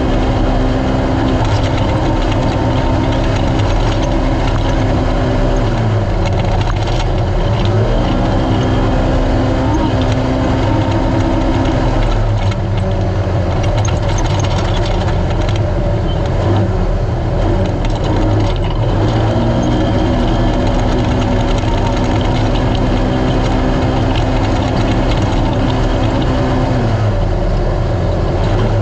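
Race UTV engine running hard at high revs, with a dense mechanical and road-noise haze. The engine note drops about six seconds in and climbs back soon after, drops again near twelve seconds and stays lower until it rises around twenty seconds, then drops once more near the end.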